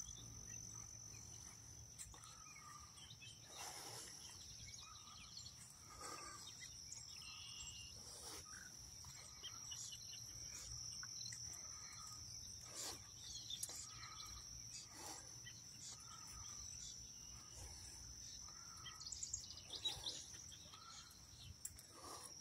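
Faint outdoor ambience: a steady high-pitched insect chorus, with faint short bird calls repeating every second or so.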